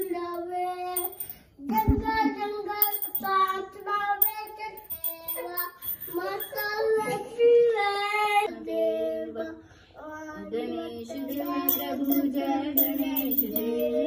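A child singing a devotional song, with a small brass hand bell ringing at times.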